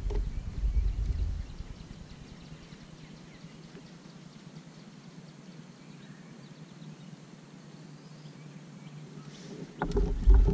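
Low rumbling with a few knocks from the kayak and its camera mount in the first second or so and again near the end. Between them is quiet open-air lake ambience with faint high chirps.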